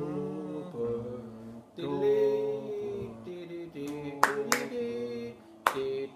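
People singing a tune in long held notes, without instruments, with a few sharp smacks about four seconds in and again near the end.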